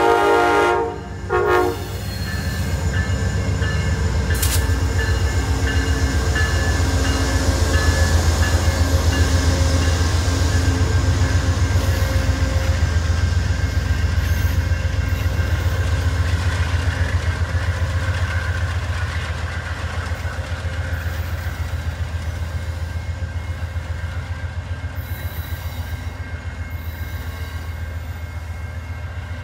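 Amtrak P42DC diesel locomotive's horn sounding for a grade crossing, cut off about a second in with a short final blast. Then the passenger train's cars roll past with a steady low rumble and a regular clickety-clack of wheels over rail joints, easing off a little near the end.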